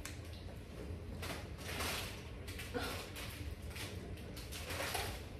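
Plastic packaging rustling and items being handled on a counter, in a few short bursts with small clicks, the longest about a second in.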